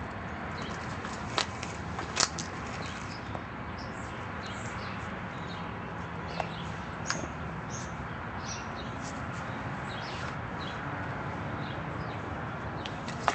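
Steady outdoor background noise with a few sharp clicks or knocks, the loudest about two seconds in, and faint high chirps scattered through.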